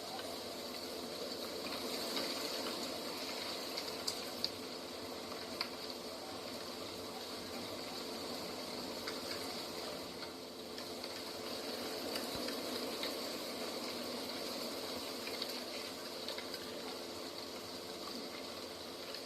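Steady rushing of flowing water, like a stream or small waterfall, with a few faint short ticks scattered through it.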